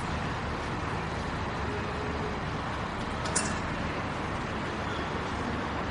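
Metro station ambience: a steady din of low rumble and background hum, with one brief sharp click about three and a half seconds in.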